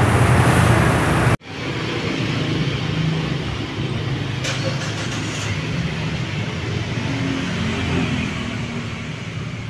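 Steady low motor-vehicle rumble. It breaks off abruptly about a second and a half in and resumes a moment later at a slightly lower level. There is a brief click around four and a half seconds in.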